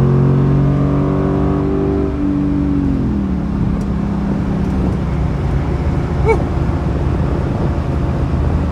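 Jeep SRT8's HEMI V8, fitted with headers, running under way; its drone drops in pitch about two to three seconds in as the revs fall, then holds at a lower steady note.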